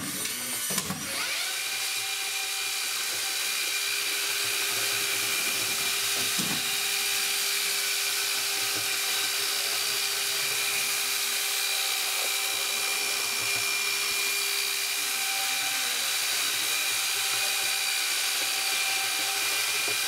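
Metabo RW 18 LTX 120 cordless 18 V paddle mixer running steadily, its whisk paddle churning a sandy mix in a plastic drum: a constant motor whine over a hiss, with one brief knock about six seconds in.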